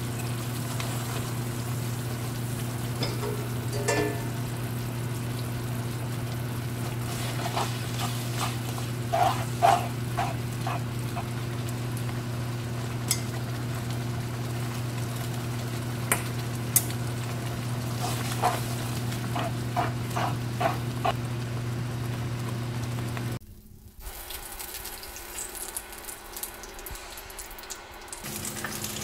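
Cream sauce with bacon and spaghetti simmering in a frying pan, with a utensil stirring and scraping against the pan now and then, over a steady low hum. The hum stops abruptly near the end, leaving quieter kitchen sounds.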